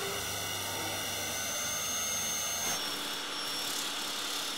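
Steady whir of power tools working a foam surfboard blank: an electric circular saw, changing about two-thirds of the way in to a disc sander on the board's rail.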